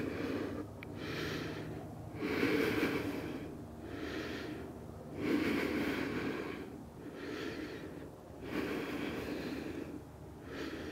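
A woman breathing audibly and slowly while resting in child's pose. Long, even inhales and exhales alternate, about four full breaths.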